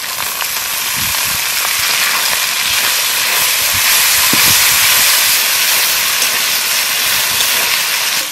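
Tomato puree sizzling loudly as it hits hot oil and fried spice paste in a large kadai and is stirred in with a spatula. The hiss swells to its loudest about halfway through, with a few soft knocks of the spatula against the pan.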